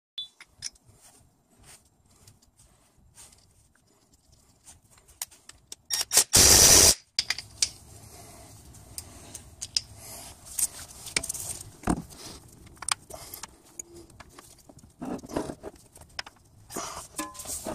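Metal parts and tools clicking, clinking and scraping while a timing belt tensioner pulley is moved onto its bracket and fitted. About six seconds in comes one loud burst, a little under a second long, from a cordless power tool driving the pulley bolt.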